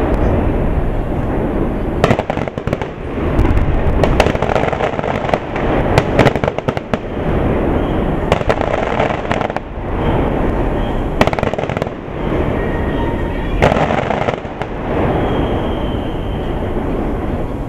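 Aerial fireworks display: shells bursting in repeated loud bangs that come in clusters every two seconds or so, over a continuous low rumble.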